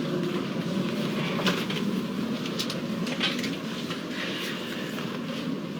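Passenger train interior noise: a steady rumble of the carriage, with a few scattered knocks and clicks.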